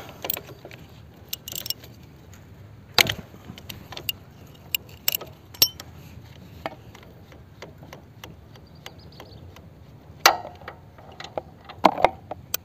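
Scattered metallic clicks and clinks of a wrench working the oil drain bolt of a Bajaj Pulsar 150 engine to drain the oil, with a few louder clanks about three seconds in and near the end.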